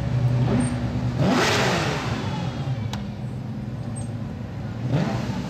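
Porsche 911 GT3 Cup race cars' flat-six engines running at low speed. One car passes about a second and a half in, its note swelling and then falling away, and another engine revs up near the end.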